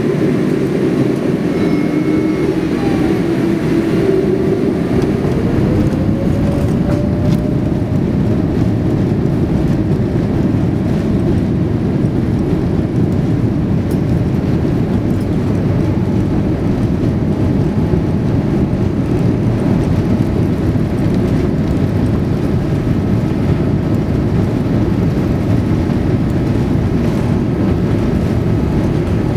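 Airliner's jet engines at takeoff thrust, heard from inside the cabin: a whine rising in pitch about four seconds in as the engines spool up, then a steady loud roar of engines and rushing air.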